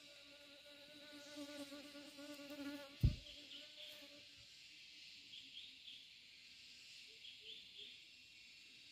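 Insects droning steadily in the trees, with short chirps repeating every couple of seconds. An insect buzzes close by for the first three to four seconds. A single sharp thump sounds about three seconds in.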